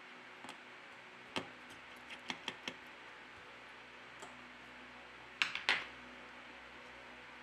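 A few small, sharp clicks and taps of hard objects, as small repair tools and parts are handled on the bench: one about a second and a half in, a quick run of four a little after two seconds, and a louder cluster about five and a half seconds in. Faint steady hiss underneath.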